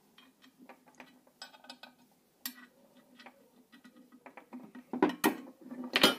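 Small metal parts clinking and tapping as bolts are fitted into zinc-plated steel plates on a workbench, with a few sharper metallic clicks about five seconds in and again near the end.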